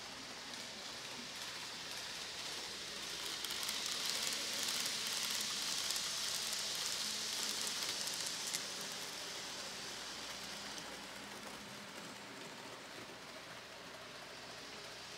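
N gauge model train running on the layout's track: an even hiss of wheels and motor that swells as the train passes close, loudest from about four to nine seconds in.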